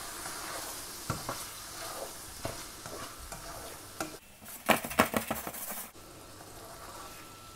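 Shrimp, onions and peppers sizzling in a non-stick frying pan as a spatula stirs tomato sauce through them, with scattered scrapes and taps of the spatula against the pan and a quick run of them about five seconds in.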